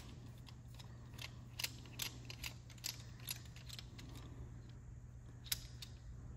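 Faint, scattered metal clicks and ticks from a small socket on a driver handle working the brass needle seat out of an SU H1 carburettor float chamber lid, with one sharper click about five and a half seconds in. A low steady hum sits underneath.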